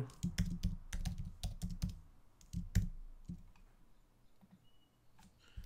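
Typing on a computer keyboard: a quick run of separate key clicks over the first two to three seconds, thinning to a few scattered keystrokes, with a pause before the last ones near the end.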